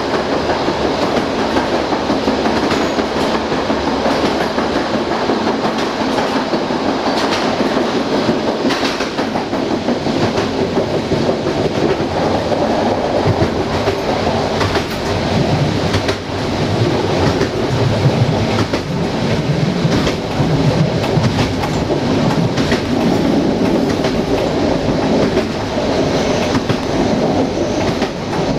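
Passenger train's wheels running along the track: a steady rolling rumble with scattered clicks as the wheels pass over rail joints.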